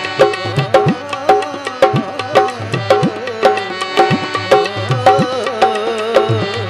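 Tabla playing a fast, steady dhamaal rhythm, the bass drum's strokes sliding up in pitch, over a harmonium holding the melody.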